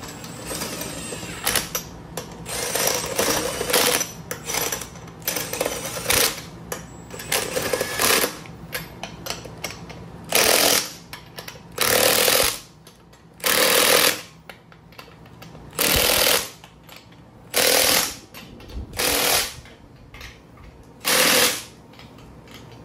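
Cordless impact wrench running lug nuts onto a wheel hub. It spins in short irregular runs for the first ten seconds or so, then hammers in a string of loud bursts of under a second each, about one every second and a half, as the nuts are driven tight.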